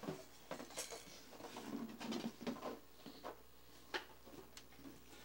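Plastic toy pieces and a cardboard box being handled: scattered light clacks, knocks and rustles, with a sharper click about four seconds in.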